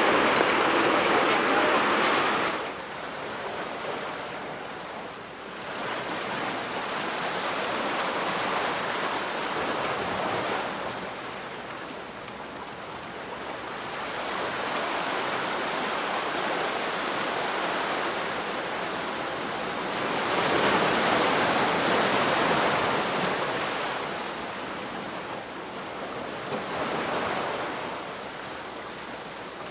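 River water rushing and splashing over rocks, a steady noise that swells and fades, loudest at the start and again about twenty seconds in.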